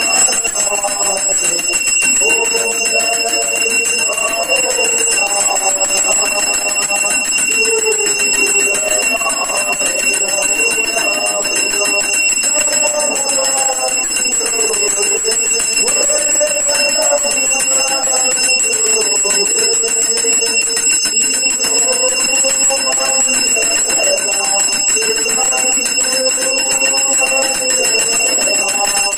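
Brass hand bell (ghanti) rung without pause through an aarti, its high ring holding steady. Over it a man sings the aarti hymn through a microphone and speaker.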